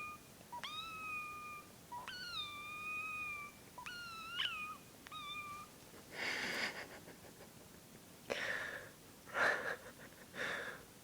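A person making high-pitched, squeaky, meow-like calls: five drawn-out calls that slide in pitch. After them come four short, breathy, noisy bursts.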